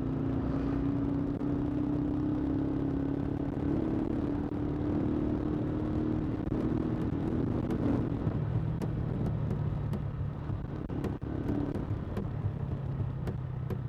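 Yamaha SZ16 motorcycle's single-cylinder engine running under way. Its note holds steady and rises slowly over the first eight seconds, then drops back, with light ticks and road noise in the second half.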